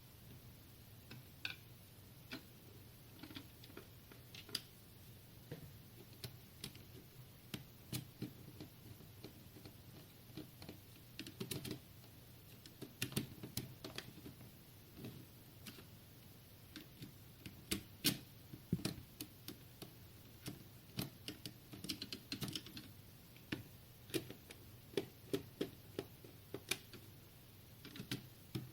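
Irregular light clicks and taps from hands working on a Lenovo Q190 mini PC's plastic case and internal parts, over a faint low steady hum.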